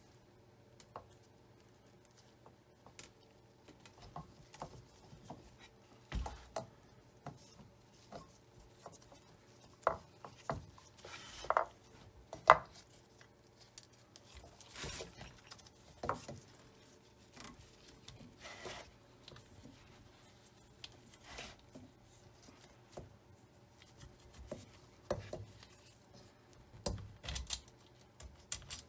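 Handling noise from a Singer Featherweight 221 sewing machine being dismantled: irregular clicks, taps and rubbing as its parts and wiring are worked by gloved hands, with a few louder knocks near the middle.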